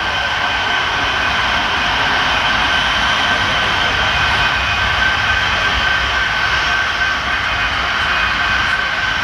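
HO-scale model coal train running on the layout: a steady mechanical drone with a constant high whine.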